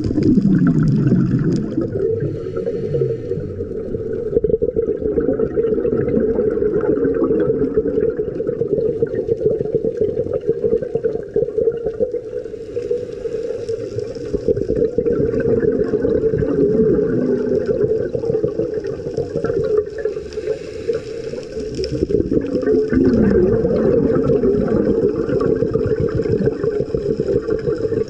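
Underwater sound picked up by a dive camera: continuous low bubbling and rushing water, with hiss that comes and goes. A couple of falling tones sound about a second in and again near the end.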